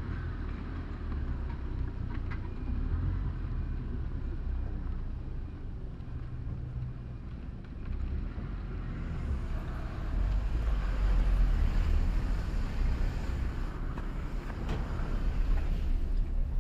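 Wind buffeting the microphone, a gusty low rumble over faint outdoor ambience, growing louder past the middle.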